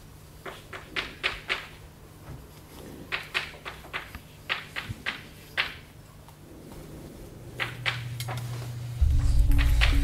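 Scattered light clicks and taps, irregular, over a low steady hum. Music with a deep bass comes in about nine seconds in.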